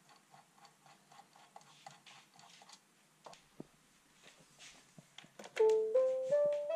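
Faint rapid ticking of a screwdriver turning screws into a Neato Botvac robot vacuum's plastic housing. About five and a half seconds in, a louder short electronic tune of clean beeps begins, stepping upward in pitch.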